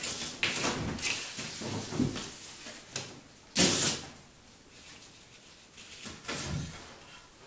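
A webbing tie-down strap being uncoiled and pulled across a wooden workbench and cardboard sheets: a series of sliding, rustling handling noises, with a sharper, louder one about three and a half seconds in and quieter handling after that.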